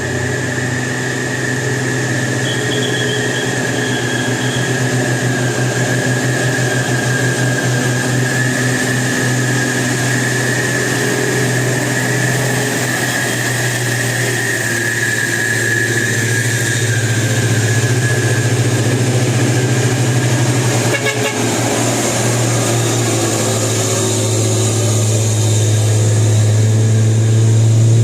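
A bus engine running with a steady low drone that grows louder toward the end. A steady high-pitched tone sounds over it for roughly the first half.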